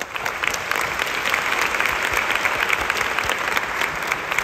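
Audience applauding: many hands clapping at once in a steady, dense patter that breaks out suddenly and keeps on.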